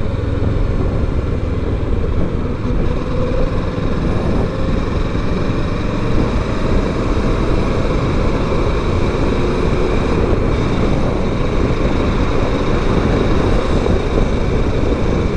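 Kawasaki Versys 650's parallel-twin engine running at a steady cruise, mixed with wind and road noise.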